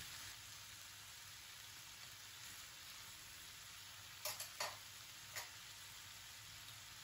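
Faint, steady sizzle of okra and prawns frying over high flame in a nonstick pan. About four seconds in, a wooden spatula stirring them knocks against the pan three times.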